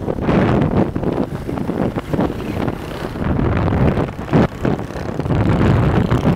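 Wind buffeting the microphone of a camera riding on a moving bike, over road and vehicle noise; the rush rises and falls unevenly, with a brief dip a little past halfway.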